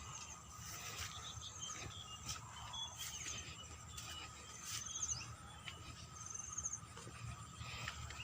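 Faint countryside insect sound: a steady high trilling drone, with short rapid chirping trills four times and scattered soft clicks.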